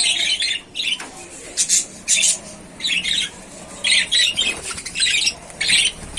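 Flock of budgerigars squawking and chattering in short, irregular bursts of high calls.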